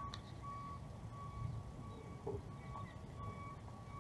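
A high electronic beep repeating at an even pace, about every two thirds of a second, over a low rumbling noise.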